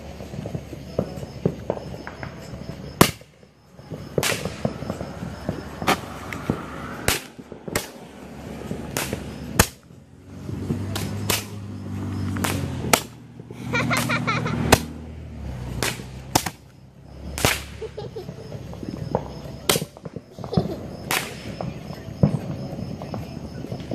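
Fireworks and firecrackers going off: about twenty sharp bangs and cracks at irregular intervals, some loud and close, others fainter and farther off.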